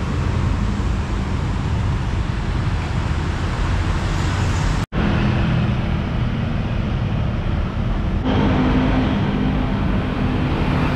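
Steady city street traffic: the continuous rumble of passing car and motorbike engines. A brief dropout comes about five seconds in, and a nearer engine hum sets in about eight seconds in.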